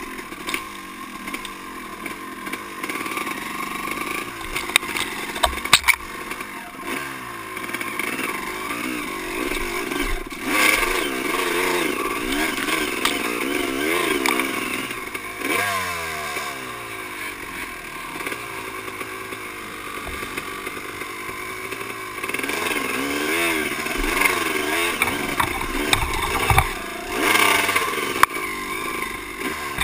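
Dirt bike engine revving up and down as it is ridden slowly through tight brush, the pitch rising and falling with each blip of the throttle. Sharp knocks and brushing noises come from grass, branches and rough ground hitting the bike.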